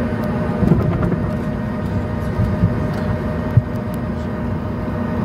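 Cabin noise of a Boeing 737 MAX on the ground just after landing: the engines and rolling airframe make a steady low rumble with a faint steady hum. There are a few brief knocks, one about a second in and another past the halfway point.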